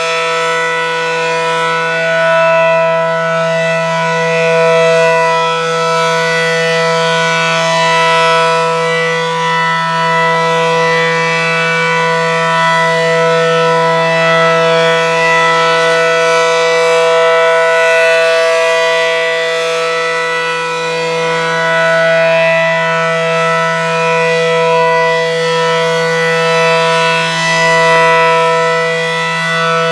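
ACA Allertor low-tone rotating outdoor warning siren sounding a steady alert signal. It holds one low pitch, and its loudness swells and fades about every six seconds as the siren head rotates.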